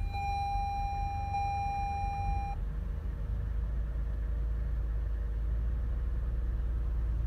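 2017 Toyota Sienna's 3.5-litre V6 idling with a steady low rumble. A steady high electronic tone sounds over it and stops about two and a half seconds in.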